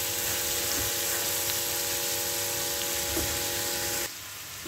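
Soaked, drained chana dal (split chickpeas) sizzling as it fries in oil in a kadhai, stirred with a silicone spatula. The steady sizzle cuts off abruptly about four seconds in.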